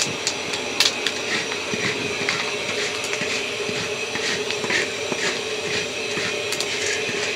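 Wooden paddle stirring corn kernels and sugar in a steel kettle corn kettle: scattered light clicks and scrapes over a steady rushing hum.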